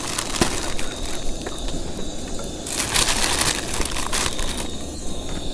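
Crackling and crinkling noise from green beans being seasoned and cooked in a camp pan, with a short louder hiss about three seconds in.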